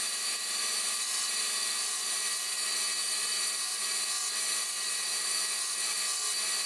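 A belt grinder runs steadily while a small steel piece is pressed against the belt. It makes an even grinding hiss over a constant motor hum.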